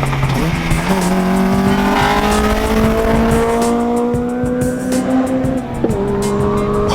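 Acura RSX's four-cylinder engine pulling hard under acceleration, its pitch rising steadily, then dropping sharply near the end as it shifts up a gear and starts climbing again.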